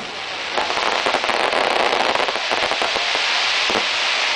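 Fireworks crackling: a dense sizzle of many tiny pops from crackling stars, with a couple of heavier bangs, one about half a second in and one near the end.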